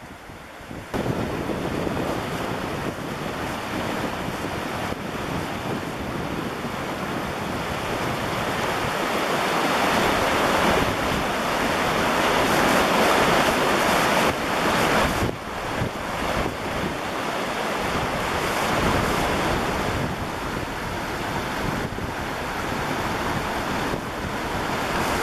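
Floodwater of the River Thames rushing through a weir in full flood, a steady dense rush that grows louder towards the middle, with some wind buffeting the microphone.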